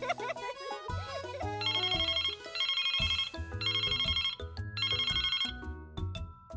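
A telephone ringtone, a fast electronic trill, rings four times about a second apart, over light children's background music.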